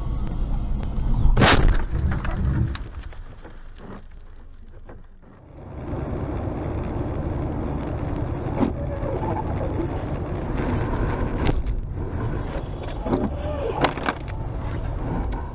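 A car collision: one loud crash of impact about a second and a half in, heard from inside the dashcam car. It is followed later by the steady low rumble of a car driving on a highway, with a few brief cries or squeals and knocks over it.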